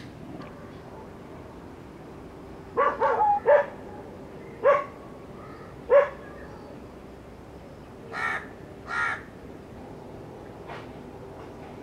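A crow cawing: a quick run of about four harsh calls, then two single caws, then two longer, softer calls.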